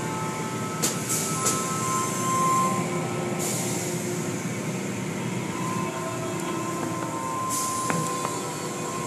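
Automatic tunnel car wash heard from inside the car's cabin: water spraying and cloth wash strips sweeping over the glass, over a steady machinery rumble with a thin whine. Short hissing surges of spray pass over the car a few times.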